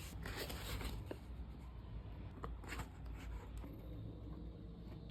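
Product packaging being handled: rustling with a few light clicks and taps.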